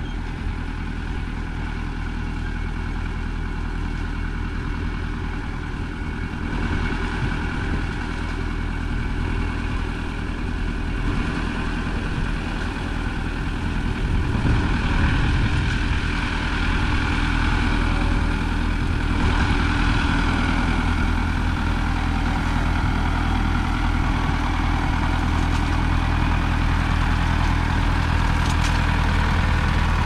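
Farm tractor engine running steadily while pulling a McCormick-Deering grain binder through standing wheat, growing louder as it draws near, with the binder's working clatter mixed in.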